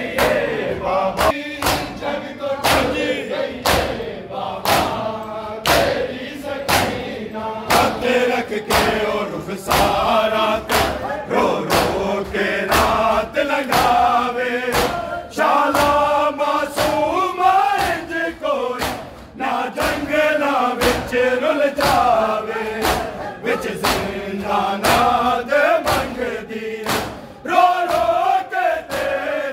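Crowd of men chanting a Punjabi noha in unison, a lament for Bibi Sakina, over a steady beat of sharp hand slaps about two a second: matam, the mourners striking their chests in time with the chant.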